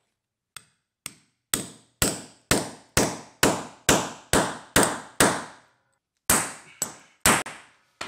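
Hammer striking a steel setting tool to drive the expander plug of a drop-in concrete anchor set in a garage floor slab. The sharp metallic blows come about two a second, two light taps and then about nine hard strikes, followed by a pause of about a second and three more.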